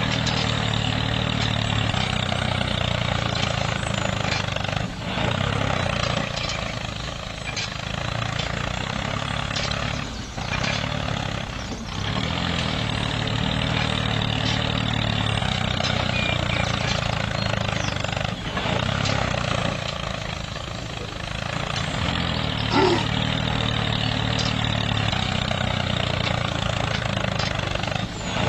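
Tractor engine running steadily, with a few brief dips in level.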